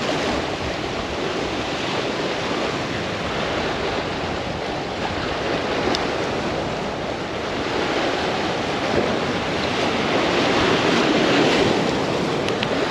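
Surf breaking and washing over the rocks of a jetty, a steady rush that swells louder about eight to twelve seconds in, with wind on the microphone.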